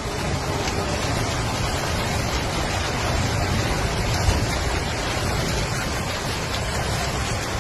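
Steady, loud rushing of water from storm and flood conditions, an even noise with no distinct strikes.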